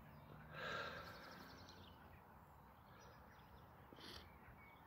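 Near silence, with a faint bird call about half a second in, followed by a quick run of high chirps. A short high chirp comes about four seconds in.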